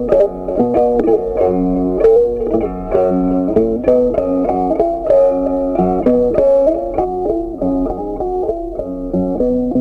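Background music: a plucked guitar tune with a bass line, short notes following one another in a steady rhythm.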